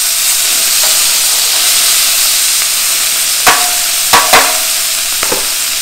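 Bone-in pork chops searing in oil in a stainless steel pan: a loud, steady sizzle. About three and a half seconds in, metal tongs clink against the pan a few times, each clink leaving a short ring.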